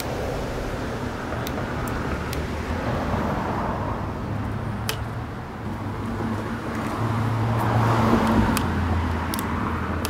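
Outdoor traffic noise: a steady wash of road sound that swells as a vehicle passes, about seven to nine seconds in, with a few faint clicks.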